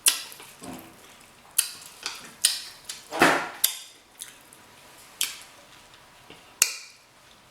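Close-up eating sounds of king crab legs from a seafood boil: irregular sharp clicks and crackles of shell being handled and broken, and wet mouth sounds of chewing, with a louder one about three seconds in.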